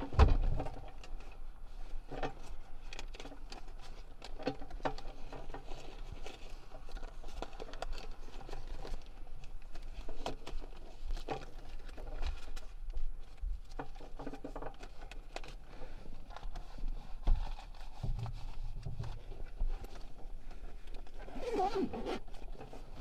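Rustling, small clicks and light knocks from a person rummaging through a car's interior, with a heavier thump just after the start.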